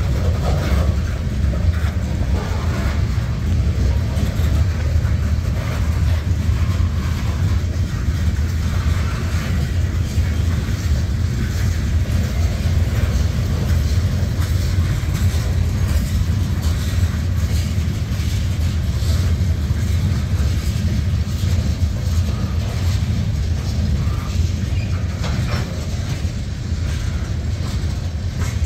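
Covered hopper cars of a freight train rolling past on street track: a steady low rumble of wheels on rail with scattered clicks and clanks, which come more often near the end.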